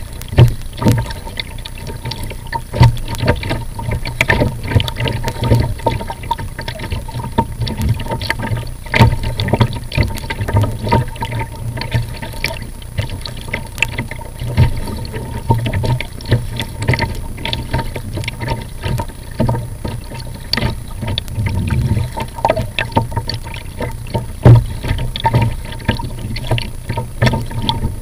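Water splashing and slapping against a plastic kayak hull as it is paddled through light chop, with the paddle blades dipping in, in irregular close-spaced splashes over a low rumble.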